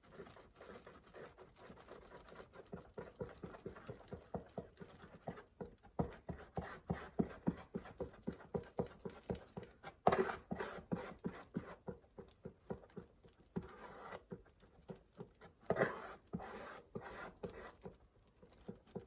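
Two-part plastic repair filler being stirred quickly with a mixing stick on a mixing surface. It makes a run of rapid, even ticks and scrapes at about three a second, with two louder scrapes partway through.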